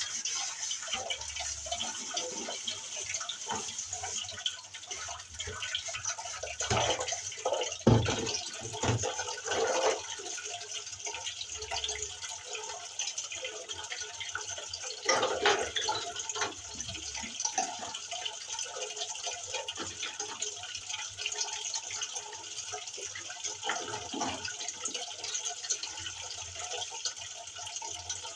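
Dishes being washed by hand in a sink: water splashing and dripping, with scattered clinks and knocks of pots, a plastic basin and mugs, a few of them louder.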